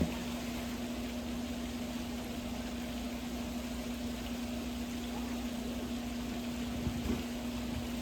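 A steady mechanical hum holding one pitch over a constant background noise, with a couple of faint knocks about seven seconds in.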